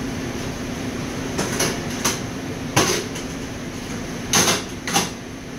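A steady machinery hum with a handful of short clicks and knocks, about five in all, the loudest about three seconds in and again just past four seconds: a gloved hand pressing the keys of a Fluke 52 II digital thermometer while setting its calibration offset.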